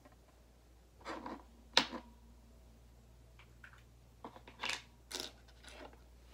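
Handling noise: a few short scratchy rustles and one sharp click about two seconds in, over a faint steady room hum.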